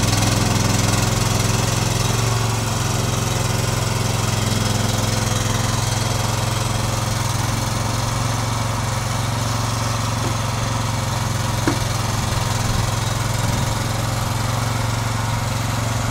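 Engine of a trailer-mounted hydraulic log loader running steadily, driving the grapple boom as it lifts a log section.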